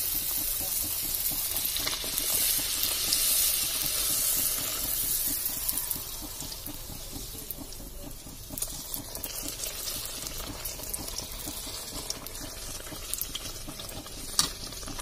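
Puri deep-frying in hot oil in a kadai: a steady sizzle, louder for the first six seconds, then softer with scattered crackles and one sharp tick near the end.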